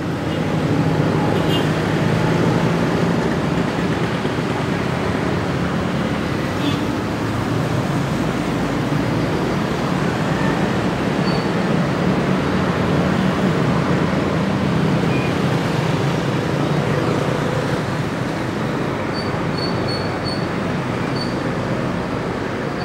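Passenger train shunting slowly, with the steady low rumble of its diesel locomotive and the rolling coaches.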